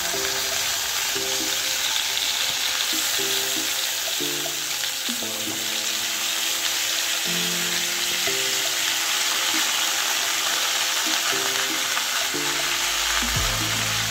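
Pieces of vetki (barramundi) fish frying in hot oil: a steady, even sizzle.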